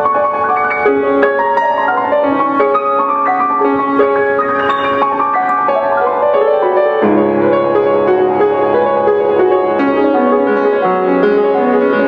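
Steinway grand piano being played, a quick flowing run of notes in the middle and upper register. About seven seconds in, deeper bass notes join and the sound grows fuller.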